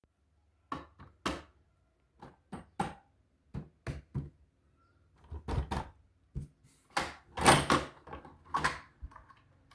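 Irregular sharp knocks and clacks of hard objects, about fifteen in all, with short silences between them. There are longer clattering bouts about five and a half and seven and a half seconds in, and the later one is the loudest.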